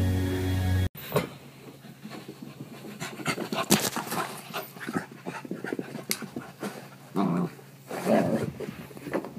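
Corgi panting as it runs in circles under a bed, with clicks and scuffs of its movement on the carpet. Music plays for about the first second and stops abruptly.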